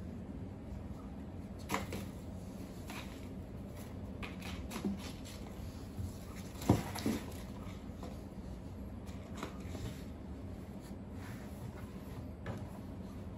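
A cat pawing and batting a crumpled paper ball inside a cardboard box: scattered crinkles and scrapes of paper and paws on cardboard, with one louder knock against the box about halfway through.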